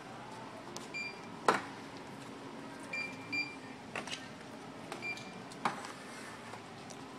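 Checkout barcode scanner giving four short high beeps, spaced a second or two apart, over a steady background hum, with three sharp knocks, the loudest about a second and a half in.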